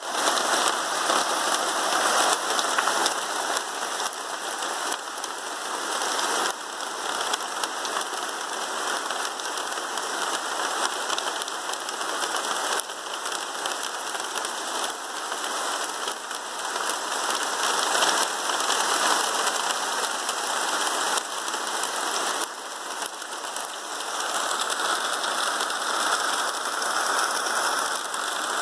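Heavy hail shower: a dense, steady hiss of hailstones striking the paving, road and grass.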